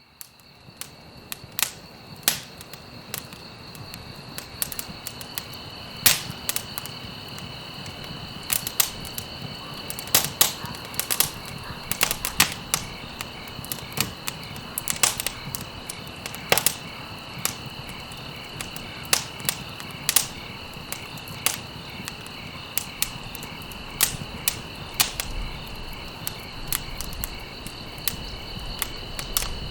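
Campfire crackling, with irregular sharp pops and snaps of burning stalks over a soft hiss of flame, fading in from silence over the first few seconds. A steady high-pitched insect trill runs underneath.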